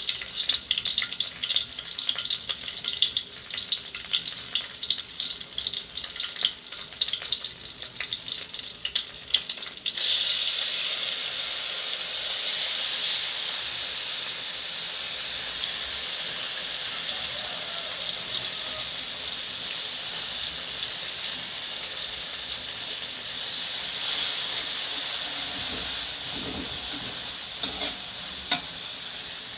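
Food frying in hot oil. For about ten seconds it crackles and spits with quick pops, then it changes abruptly to a steady, even sizzle that lasts to the end.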